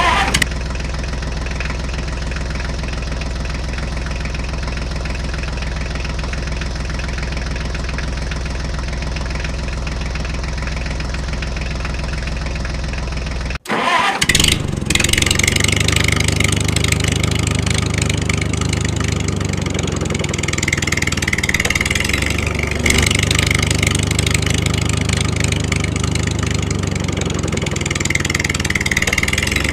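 A steady engine running, cut off abruptly about halfway through. A different engine then starts up with a short burst of noise and runs on, its pitch shifting a little now and then.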